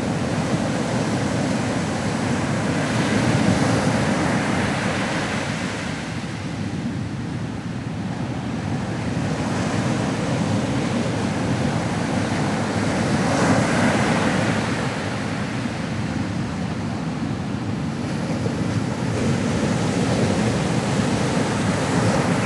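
Ocean waves breaking on a shore: a continuous wash of surf that swells and recedes in slow surges.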